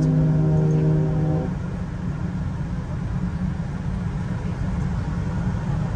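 A large ferry's ship horn sounding one long, steady blast that cuts off suddenly about a second and a half in, followed by a steady low rumble.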